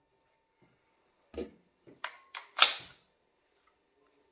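A few sharp mechanical clicks and clacks from handling an IMI SP-21 Barak pistol: one about a second and a half in, then a quick run of four, the loudest a bit past two and a half seconds in.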